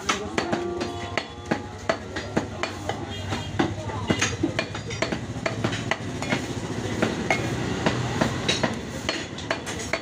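Butcher's knife chopping beef on a wooden log chopping block: a run of sharp knocks at an irregular pace, several strokes a second.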